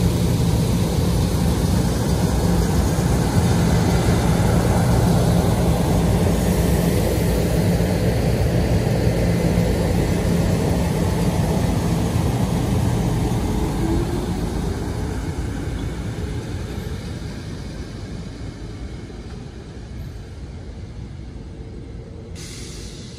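SEPTA Silverliner electric commuter train pulling out and rolling past, a steady electric hum with wheel and track rumble. The hum drops away about halfway through and the sound fades as the train leaves.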